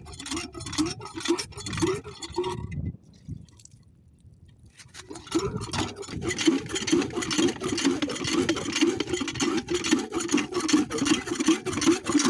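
Cast-iron hand pump on a diesel water pump's suction pipe worked rapidly by hand, a rhythmic clanking and sloshing of water at about three strokes a second, to prime the pump. It stops for about two seconds near the start, then carries on.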